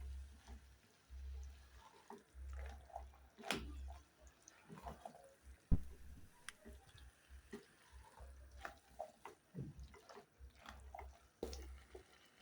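Faint wet scraping and clicking of a spoon stirring githeri and bananas in a cooking pot, with one sharp knock of the spoon about six seconds in.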